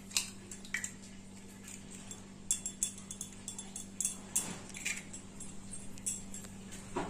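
An egg being cracked and its shell pulled apart by hand over a steel tumbler: a scatter of light clicks and clinks, a cluster of them about two and a half to three seconds in, over a steady low hum.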